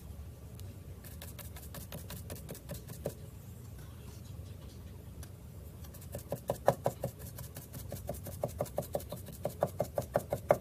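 Stencil brush dabbing paint through a stencil onto a wooden board. The light taps come sparsely at first, then, about six seconds in, turn quick and even at roughly four a second.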